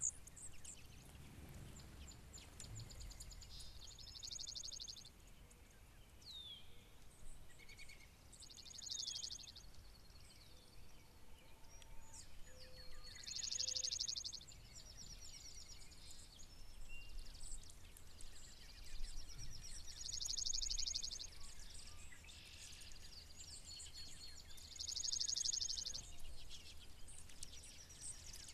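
Slate-colored dark-eyed junco singing: five rapid trills of quickly repeated notes on one pitch, each about a second and a half long and coming about every five seconds. Other birds give short chirps in between.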